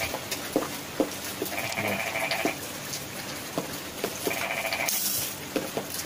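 An animal call, pitched and slightly pulsing, about a second long and repeated twice, about three seconds apart. There are scattered sharp clicks throughout and a brief hiss about five seconds in.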